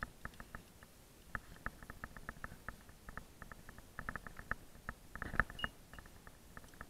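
Climbing gear being handled at a harness: irregular light clicks and small rustles of carabiners, rope and gloved hands, busiest around four and five seconds in.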